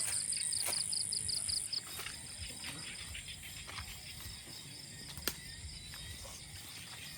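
Night insects calling: a fast, high pulsing chirp of about seven or eight pulses a second, over a steady high whine that cuts off about two seconds in, after which the chirping goes on more faintly. A single sharp click about five seconds in.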